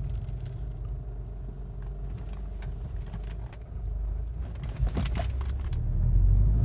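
Low rumble inside the cabin of a 2012 VW Golf GTI on the move, carrying the vibrating noise from the rear that the owner cannot place. A few sharp clicks come about five seconds in, and the rumble grows louder near the end.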